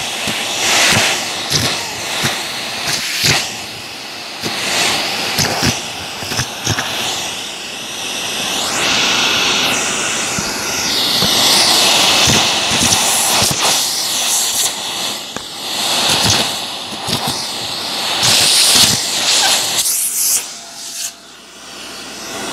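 Shark vacuum's crevice tool, on the bare hose, sucking up rubber pencil-top erasers from shag carpet: a steady rush of suction with frequent clacks and rattles as pieces are pulled in, easing briefly near the end.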